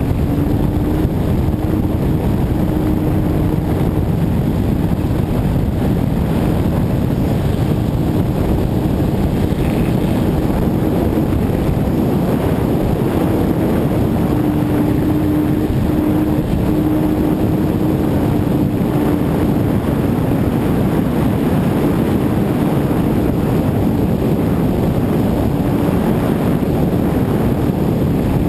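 Wind rushing over an onboard camera on a radio-controlled model airplane in flight, with the faint hum of its motor and propeller wavering slightly in pitch.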